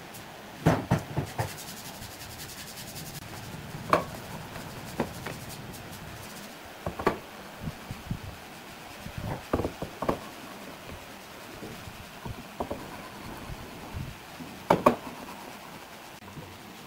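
Pieces of wood lath being handled, with irregular wooden knocks and clatter and a short scraping rub early on.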